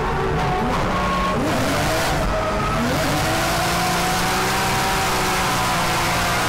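In-cabin sound of a 2JZ-swapped Nissan Silvia S15 drift car mid-drift: the engine revs rising and falling with the throttle over a steady hiss of tyres sliding and squealing.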